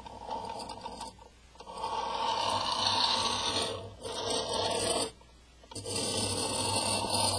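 Scraping and rubbing as the metal binder clips of a homemade iPod stand are handled and slid across a wooden tabletop, in three stretches with two short breaks.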